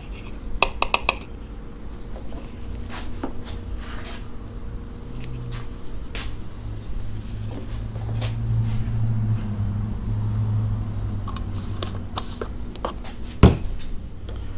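Handling noises around an outboard's oil filler: light clicks and knocks of plastic and metal, with a cluster of ringing clicks about a second in and one sharp knock near the end. A low hum swells through the middle.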